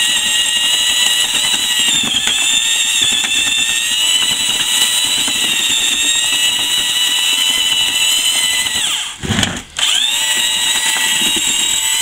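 Makita 1/2-inch drill turning a mixing paddle in a bucket of stiff mortar: a steady motor whine whose pitch dips briefly about two seconds in. Just after nine seconds it cuts out for about half a second, then spins back up.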